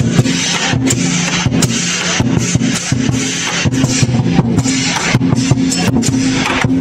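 Lion dance percussion: a large Chinese lion drum beaten in a fast, busy rhythm with crashing cymbals, over a constant low ringing.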